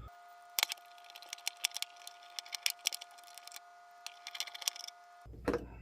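Irregular sharp clicks and snaps of hand tools working on the spot-welded nickel strips of a LiFePO4 battery pack as its cells are pulled out, with a faint steady high tone behind.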